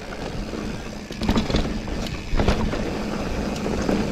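Mountain bike riding singletrack over a dry pebble trail surface: steady tyre noise with rattles and knocks from the bike over the stones, louder from about a second in and again past the middle.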